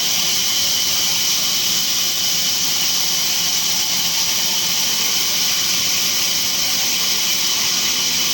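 Sawmill saw running steadily, a continuous high-pitched hiss with a steady whine and no change in level.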